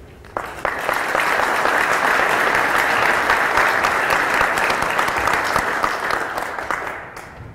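Applause from a crowd of people clapping. It starts suddenly about half a second in, holds steady, and dies away near the end.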